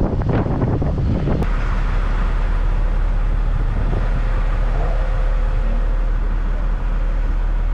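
Recovery truck's engine running, heard from the race car on its flatbed: wind and road noise while moving. About a second and a half in the sound changes abruptly to a steady low rumble.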